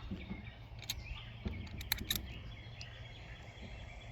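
Quiet outdoor background with a steady low hum, a few faint clicks in the first two seconds, and a faint bird call.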